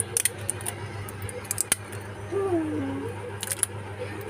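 Small clicks and scrapes of a pry tool working at a phone battery held in by hard glue, over a steady low hum. A short murmured voice is heard near the middle.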